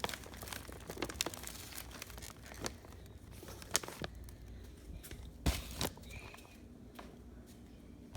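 Crinkling and tearing of paper or plastic wrapping, with scattered sharp clicks and taps, the loudest a little after five seconds in.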